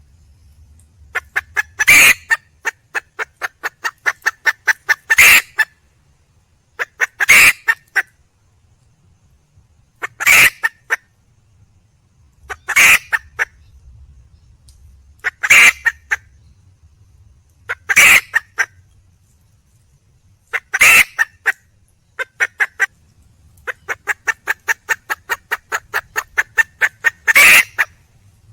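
Wild junglefowl hen calling for a cock. Loud single clucking calls come about every two to three seconds, and between many of them run long strings of quick, short clucks, about four a second.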